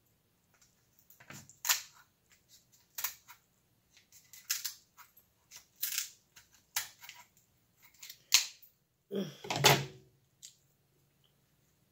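Kitchen shears snipping and cracking the spiky shell of king crab legs: a string of short, sharp snaps and crunches, irregularly spaced. About nine seconds in comes a louder, lower mouth sound as the crab meat goes to the mouth.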